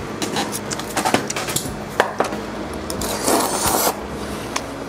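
Close-up eating sounds: chewing, then noodles of clam knife-cut noodle soup slurped from a metal bowl. There are a few sharp clicks of chopsticks, and the loudest slurp comes a little past three seconds in and lasts under a second.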